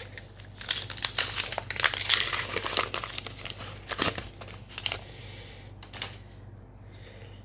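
Trading card booster pack wrapper being torn open and crinkled in the hands: a dense crackle for about four seconds, then a few light clicks.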